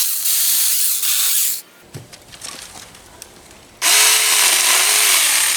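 Saker 20-volt cordless mini chainsaw running in two bursts while cutting up logs. The first burst stops about a second and a half in, and the second starts nearly four seconds in.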